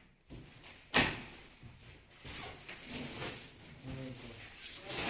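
A large cardboard carton's flap is pulled open with one sharp slap about a second in. Scraping and rustling of cardboard and the paper kites packed inside follow.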